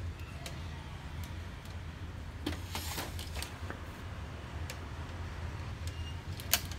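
Scattered light clicks and taps as a long screwdriver and hands knock against a disassembled laser printer's metal chassis and plastic parts, a quick cluster of them midway and the sharpest single click near the end, over a steady low hum.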